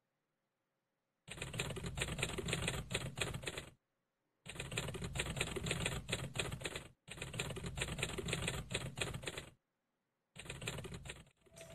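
Typewriter typing sound effect: rapid key clatter in four runs of two to three seconds each, separated by short gaps, the first starting about a second in.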